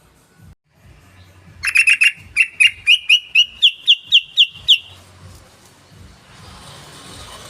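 Yellow-vented bulbul song: a quick cluster of chattering notes, then about a dozen clear, evenly spaced notes over some three seconds, each slightly rising.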